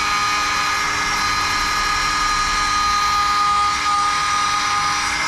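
Power disc sander with a 60-grit disc running steadily with a high whine, sanding down an aluminium weld bead.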